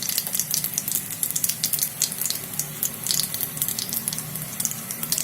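Mustard oil with crushed garlic and ajwain (carom seeds) sizzling in a pan on the flame, a steady hiss with many sharp irregular crackles. The garlic and ajwain have fried until charred black.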